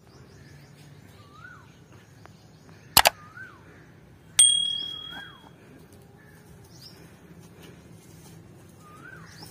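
A bird repeats a short call that rises and falls, about every one and a half seconds. About three seconds in comes a double mouse-click sound effect, and just over a second later a bright bell ding that rings out and fades over about a second: the sounds of a subscribe-and-bell animation.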